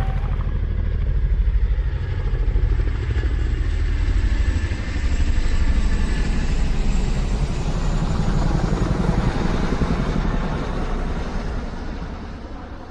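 An engine running steadily with a rapid low pulsing, its loudness swelling and ebbing, then fading away near the end.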